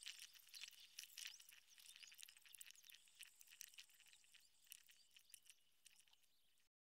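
Near silence: faint room tone with scattered small high clicks and crackle, dropping to dead silence for a moment near the end.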